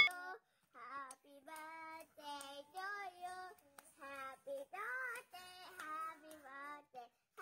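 Young children singing together in short phrases, clapping along.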